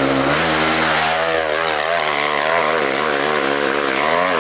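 Dirt bike engine revving hard on a steep dirt hill climb, its pitch rising and falling again and again as the throttle is worked.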